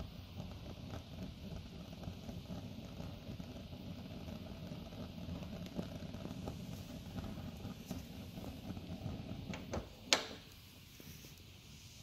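DeWalt DXH12B cordless propane heater running, a steady low rumble and hiss from its lit burner and fan. A sharp click about ten seconds in, after which the steady noise is quieter.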